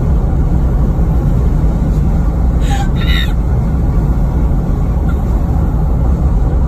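Steady loud wind buffeting and road rumble inside a moving car with a window down. Two short bursts of a person's laughter about three seconds in.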